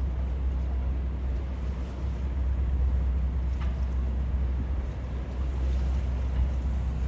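Low, steady rumble of a yacht's engines, with wind on the microphone.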